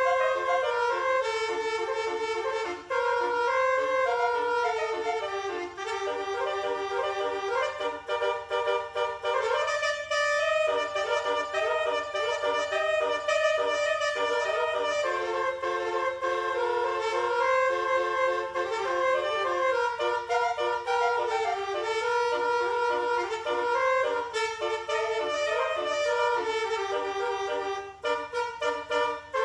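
Basuri telolet bus horn playing a tune: a stepped melody of short repeated notes and longer held notes.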